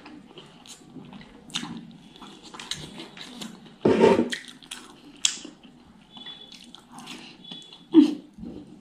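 Close-miked mouth sounds of a person eating rice and fatty pork curry by hand: wet chewing and lip smacking with scattered clicks. There is a louder wet mouth sound about four seconds in and another sharp one near the end.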